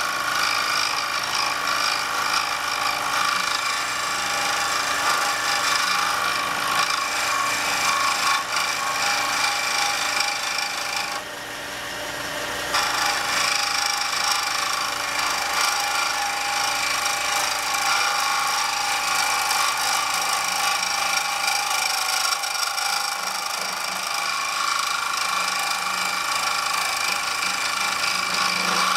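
A wood lathe spins a pen blank while a skew chisel shaves it: a steady hissing, rasping cut over the lathe's running hum. The cutting breaks off briefly about a third of the way through, leaving only the hum, then resumes.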